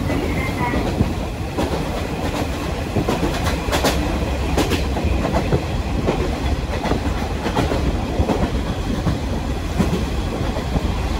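A KiHa 40-series diesel railcar running at speed, heard from inside the cabin through an open window: a steady low rumble with the wheels clicking over the rail joints now and then.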